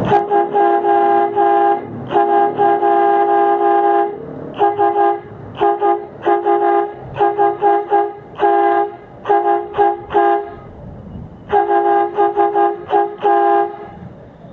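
12 V electric air horn, a compressor feeding a trumpet, mounted on an electric kick scooter and sounded over and over: two long blasts of about two seconds, then many short toots in quick groups, another long blast near the end, then more short toots. Each blast is a loud, steady horn tone that starts and stops sharply.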